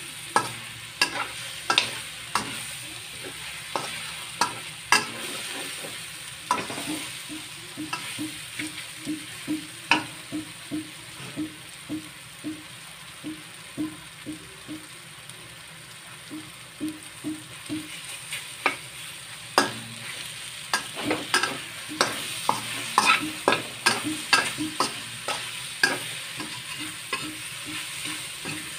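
Mushrooms sizzling in oil in a stainless steel wok while a metal spatula scrapes and clacks against the pan. The clacks come in quick flurries, thinning out for a while in the middle before picking up again after about twenty seconds.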